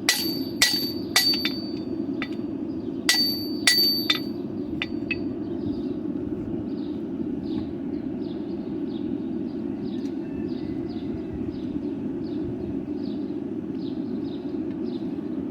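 Hand hammer striking a hot horseshoe on an anvil, forging it down to square stock: two short runs of ringing blows in the first four seconds, each with a bright metallic anvil ring. After that only a steady low hum and faint regular ticking remain.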